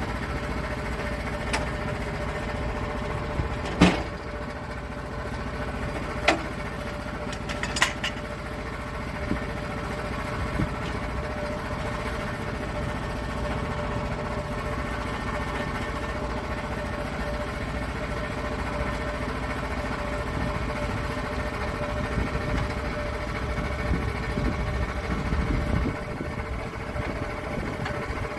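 Sawmill engine running steadily at a constant pitch, with a few sharp knocks or clanks in the first eight seconds.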